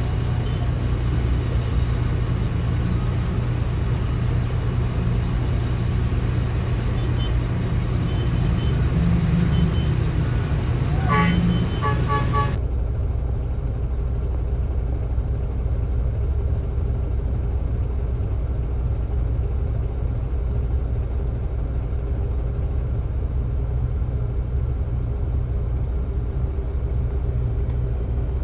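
Diesel engines of heavy quarry machinery running steadily with a deep rumble. Just before the middle a short horn-like tone sounds, and then the sound changes abruptly to a duller, steadier engine hum.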